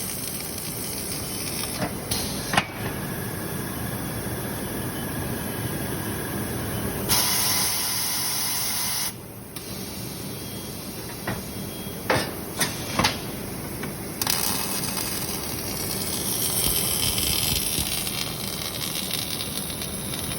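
Robotic welding: a steady hiss, with a louder burst of hissing about seven seconds in that lasts about two seconds and stops abruptly, and a few sharp clicks.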